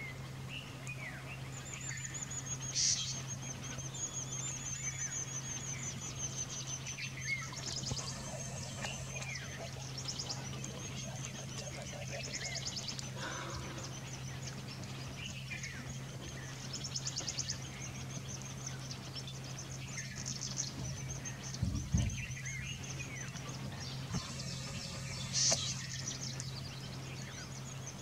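Bush ambience: birds chirping and a steady high-pitched insect drone that pulses in places, over a steady low hum. A brief low thump comes about 22 seconds in.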